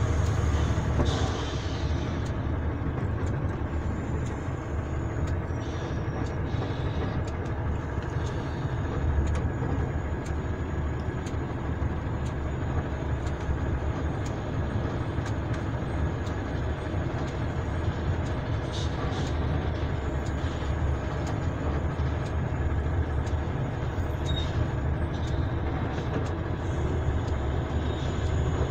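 Steady low engine and road rumble heard from inside a vehicle's cab, rolling slowly in heavy truck traffic.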